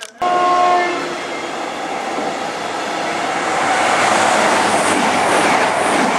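A train horn sounds briefly at the start, then the rushing wheel and rail noise of trains passing at speed: a freight train of flat wagons loaded with rails on the far track and a CrossCountry Voyager diesel unit on the near track, getting louder as the Voyager draws level.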